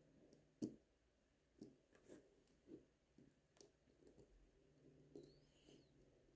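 A handful of faint, irregular clicks and taps of steel tweezers on the small parts of a Miyota 8215 watch movement, as the train wheels are fitted and coaxed to sit in their jewels.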